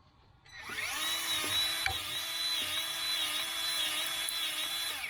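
Milwaukee M18 cordless grease gun (2446-20) running. Its motor whines up to speed about half a second in, then pumps steadily with a slight regular pulse and stops near the end. This is the gun pushing grease through a fitting that takes it, working as it should.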